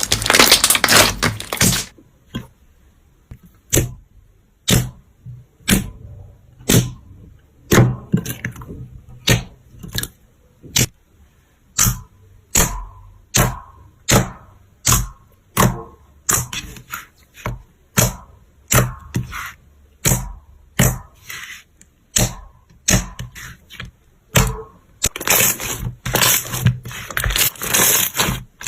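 Slime being handled: a dense crackling at first, then a series of sharp separate pops about once a second that come closer together later on, and dense crackling again near the end.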